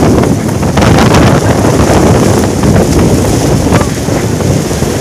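Storm-force wind gusting hard and buffeting the microphone, loud throughout, with a few short knocks of blown debris.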